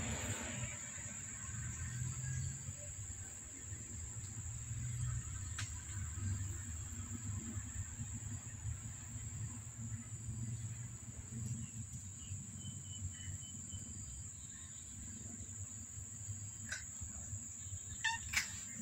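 A steady high-pitched insect trill. Underneath it there is a faint low rumble, and a few soft clicks come near the end.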